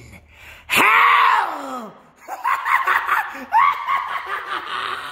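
A man's voice laughing: a loud, drawn-out laugh that slides down in pitch about a second in, followed by a run of short bursts of laughter.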